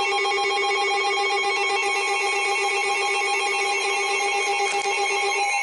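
Weather alert alarm going off ahead of a tornado warning: a loud, steady, warbling electronic tone. Near the end its lowest pitch cuts out with a click and higher tones carry on.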